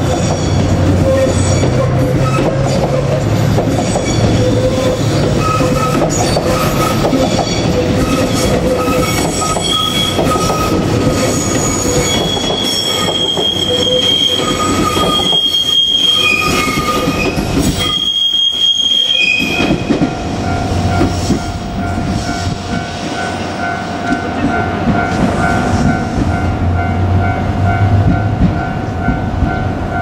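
Seven Stars in Kyushu passenger coaches rolling past over the rails with a steady rumble, their wheels squealing in shifting high tones. After about twenty seconds the squeal settles into a steadier tone as the train moves away.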